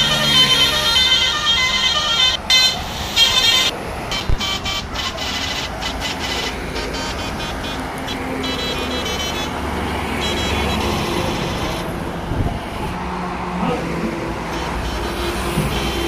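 Heavy trucks and buses passing on a highway, with engine and tyre noise. A high-pitched, repeating horn toots during the first few seconds, and a lower horn tone sounds near the end.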